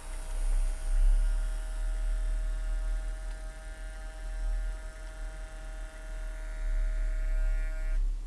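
Electric motor of an H0-scale model MaK 400C diesel locomotive on a Roco chassis, running with a steady whine over a low rumble of wheels on the track. The whine cuts off suddenly near the end as the locomotive stops.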